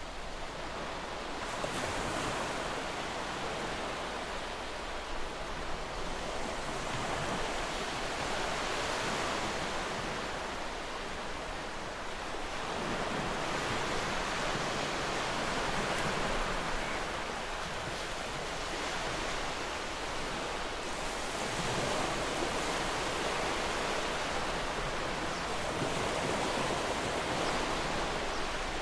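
Ocean surf: waves breaking and washing up the shore in a steady rush that swells and eases every several seconds.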